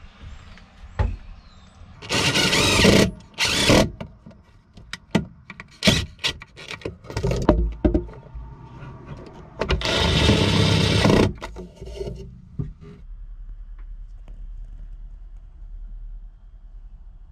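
Cordless drill-driver driving screws into a plywood shelf unit: a run of about a second, a short burst soon after, and another run of about a second near the middle, with clicks and knocks of handling between them. A faint steady low hum follows in the last few seconds.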